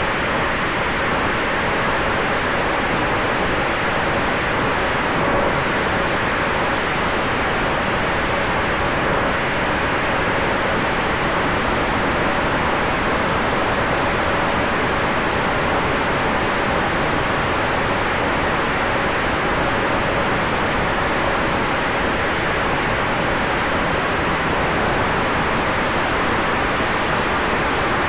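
Steady wind rush over the onboard camera of an electric RC F4U Corsair in flight, with the faint steady hum of its electric motor and spinning propeller beneath it.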